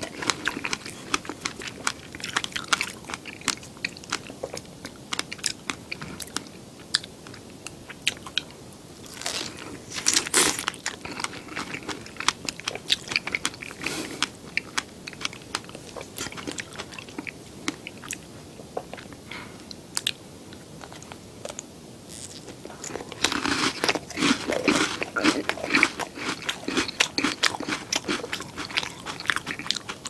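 Close-miked eating of fresh strawberries and Oreo cookies: wet biting and chewing with crisp crunches. It grows busier and louder twice, about a third of the way in and again near the end.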